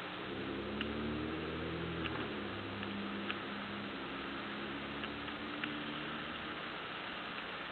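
An engine running, its pitch stepping up and down for several seconds before it fades, with a few faint clicks over steady hiss, heard through a doorbell camera's microphone.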